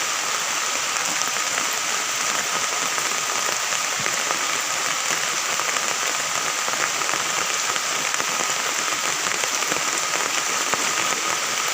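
Steady rain falling, a dense even hiss with no let-up, with a faint thin steady tone underneath.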